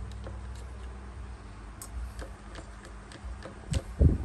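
Light clicks and ticks of small metal parts being handled as the muffler cover is screwed back onto a Mitsubishi TL33 brush cutter engine, with two heavier thumps near the end.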